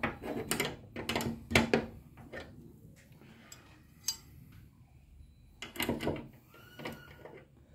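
Irregular metallic clicks and clinks of hand tools, a 13 mm spanner and socket, working on the ball-stud fitting of a bonnet gas strut.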